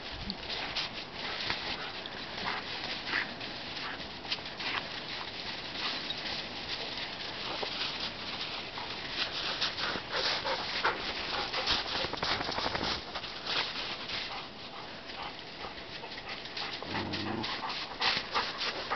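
A pack of dogs playing in snow, with many short crunching and scuffling noises throughout. A brief low-pitched call comes near the end.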